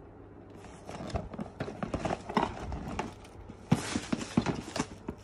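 Cardboard LEGO set box being handled and turned over: irregular knocks and taps with crinkly rustling, starting about half a second in.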